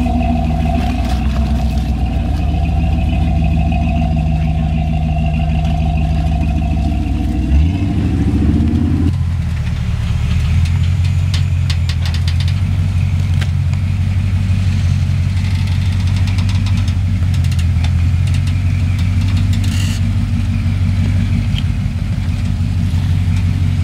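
Early Ford Bronco engine running at crawling speed while the truck climbs over rocks. About a third of the way in there is a single knock, after which a steadier, deeper engine drone takes over.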